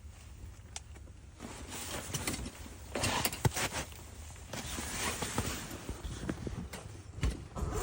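Irregular rustling and scraping with scattered clicks, like clothing and gear being handled. It grows louder about a second and a half in and peaks about halfway.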